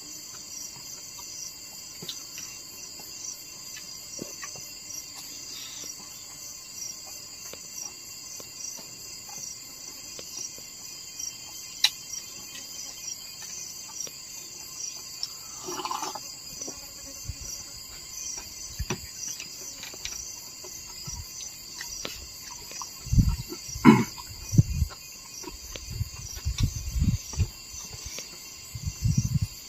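Steady chorus of insects trilling in a high, pulsing band, with scattered clicks and, in the last several seconds, a run of low thumps and bumps.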